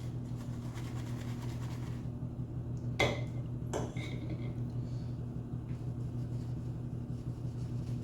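Shaving gear being handled: soft scratching at first, then two sharp clinks about three and four seconds in, one ringing briefly, over a steady low hum.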